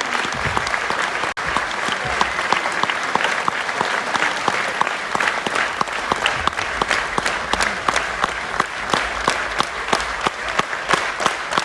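Large theatre audience applauding. In the second half the claps become more distinct and fall into a fairly even beat, about three to four a second.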